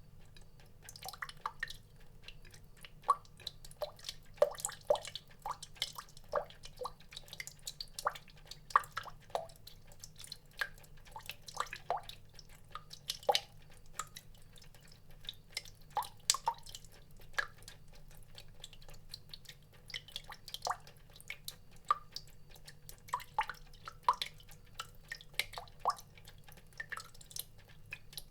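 Water drops dripping irregularly, each a short pitched plink, one to a few a second. A faint steady low hum runs underneath.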